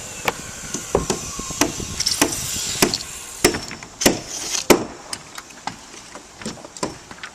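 Carpentry on a wooden roof deck: irregular sharp knocks and bangs on wood, sometimes about a second apart, sometimes closer together, the loudest about halfway through.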